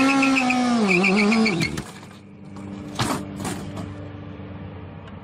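Sportbike engine revving hard during a stationary burnout, its pitch wavering. The revs fall away about two seconds in and the engine runs on at a lower, steady note, with a crash and clatter about three seconds in as the bike drops onto its side.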